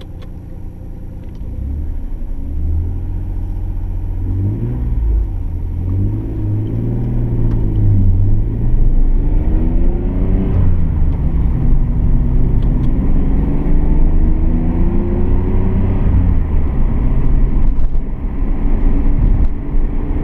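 Nissan Skyline R32 GT-R's twin-turbo straight-six (RB26DETT) heard from inside the cabin on a drive. Its note rises and drops back several times as the car pulls through the gears, then one long climb, getting louder from about a second and a half in.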